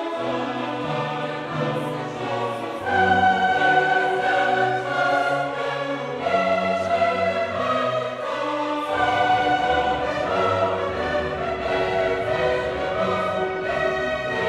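Orchestral choral music: a choir singing long held notes over orchestra.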